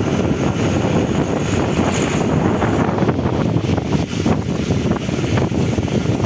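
Steady engine and road noise of a moving shared Tata Sumo jeep, heard from inside the cabin, with wind buffeting the microphone.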